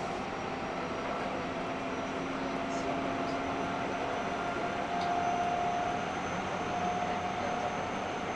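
Interior running noise of a Seibu 6000 series renewal electric train car: steady rumble of wheels on track, with steady whining tones from its GTO-inverter traction equipment.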